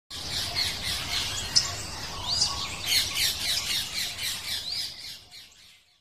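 Many small birds chirping and squawking over a steady low noise, fading out near the end.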